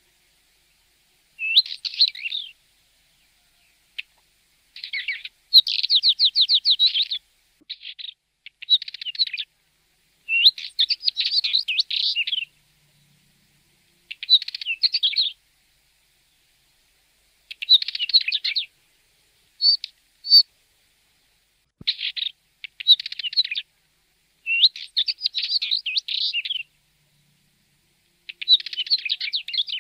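Northern wheatear singing: a series of short, scratchy, chattering phrases of one to two seconds each, separated by brief pauses, with a pair of short clear notes about two-thirds of the way through.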